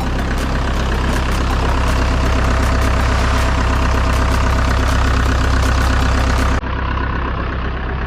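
Large diesel engine of construction machinery running steadily with a fast, even clatter. About six and a half seconds in the sound cuts briefly, then a similar engine sound resumes.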